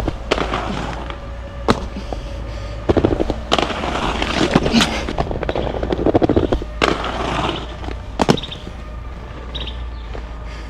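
Aggressive inline skates rolling over rough concrete, with a run of sharp clacks as the wheels and frames hit the ground and the ledge.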